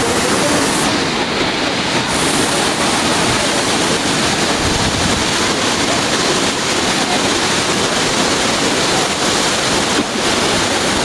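Loud, steady rushing of a waterfall, water pouring and crashing without a break.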